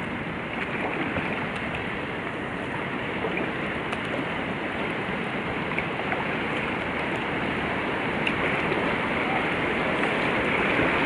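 Rushing water from a river weir's sluice channel, a steady rush that grows gradually louder toward the end.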